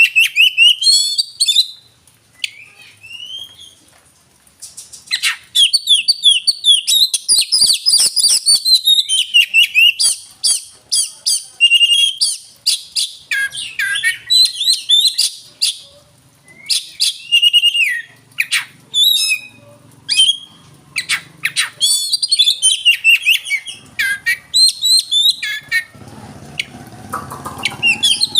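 Oriental magpie-robin (kacer) singing a loud, varied song of quick whistles, trills and harsh chattering notes in rapid phrases, with a short lull a few seconds in. A low hum comes up under the song near the end.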